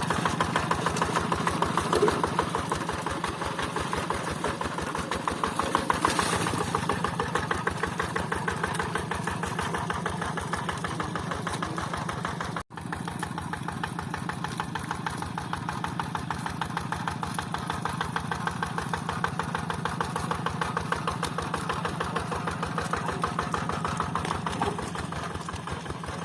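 Rice-paddy tractor engine running steadily with a rapid, even chugging beat. The sound drops out abruptly for a split second about halfway through.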